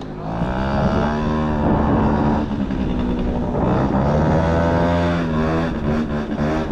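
Honda Topic moped's small engine running under way, its pitch rising and falling a few times as it speeds up and eases off.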